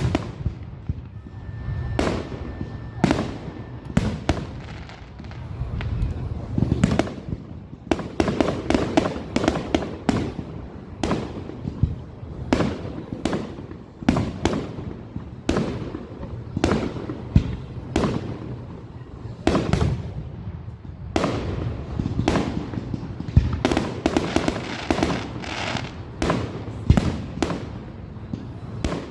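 Fireworks display: a continuous run of aerial shell bursts, many sharp bangs, sometimes several a second in quick clusters.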